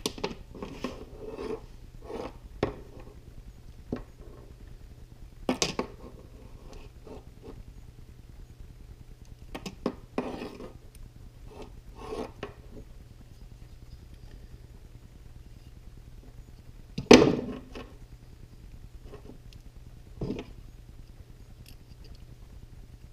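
A folding pocket knife working around the rubber outer sheathing of a two-wire sensor cable: intermittent light scraping and handling clicks on a wooden workbench, with one louder knock about seventeen seconds in.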